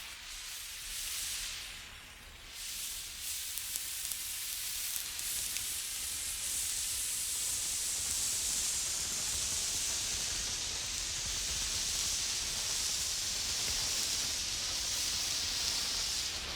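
Emergency flare burning with a steady high hiss that swells a couple of seconds in and then holds, with a few small crackles.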